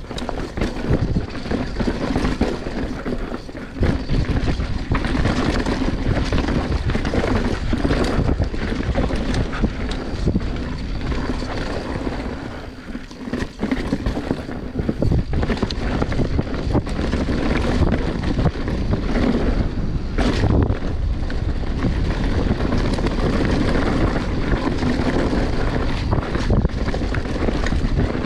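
Wind rushing over the microphone during a mountain bike descent, with the bike's tyres and frame rattling and knocking over rough ground. The noise dips briefly about halfway through.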